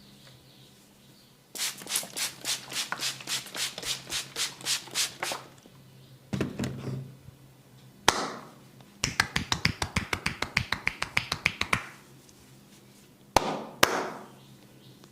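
Percussive massage strokes: hands striking the body in a run of even slaps about four a second, then a faster run about eight a second. Single sharp cracks come in between and two near the end.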